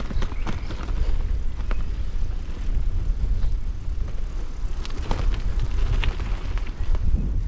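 Wind buffeting the microphone during an e-bike ride, a steady low rumble, with scattered clicks and knocks from the bike running over a rough dirt path.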